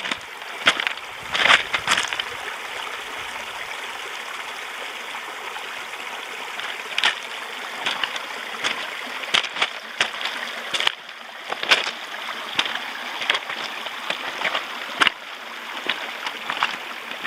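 A stream running steadily, with scattered sharp clicks and knocks over it.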